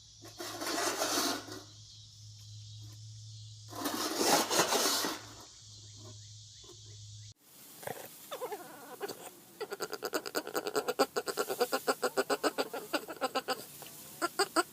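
A dog vocalizing. First come two loud rough cries a few seconds apart; after a cut, a long rapid string of short pitched yelps runs at about six a second.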